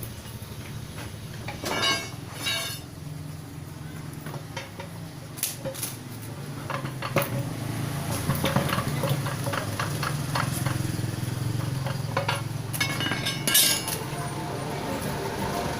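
Metal tools and steel transmission parts clinking and knocking against each other: scattered sharp clanks, the loudest about two seconds in and again near the end, over a steady low hum.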